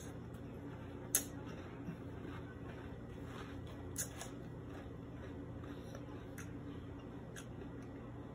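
Mouth sounds of chewing a spoonful of crunchy cereal in milk, with a metal spoon clicking against the plastic bowl a few times, sharpest about a second in and again about four seconds in. A steady low hum runs underneath.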